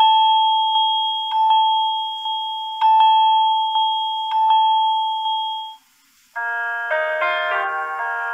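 Samsung Galaxy A41 preset ringtones played on the phone. First a single bell-like tone, re-struck about every one and a half seconds with soft ticks in between, which stops about three-quarters of the way through. After a brief gap the next preset starts, a brighter chime of several notes.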